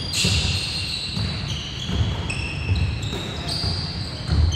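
Basketball bouncing on a hardwood gym floor during play, a thud every half-second to second, with sneakers squeaking in high, held tones over it.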